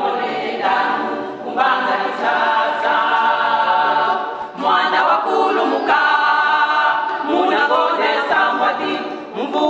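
Small women's choir singing a cappella in harmony, held notes in phrases of about three seconds with short breaks for breath between them.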